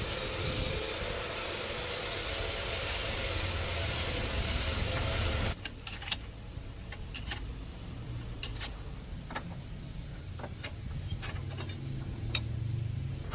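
An engine running steadily with a low rumble. Over it, a loud hiss lasts about five and a half seconds and cuts off suddenly. After that come scattered metallic clicks and knocks.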